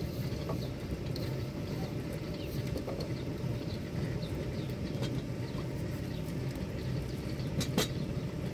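Outdoor ambience: a steady low rumble, with small birds chirping faintly and a few sharp clicks, the loudest near the end.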